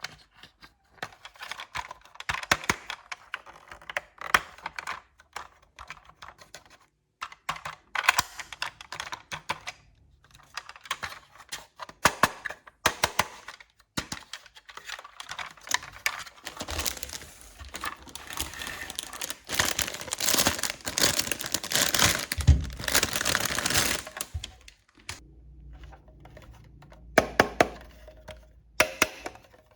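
Small plastic toy kitchen pieces clicking and tapping as they are handled, with a stretch of plastic packaging rustling and crinkling about halfway through.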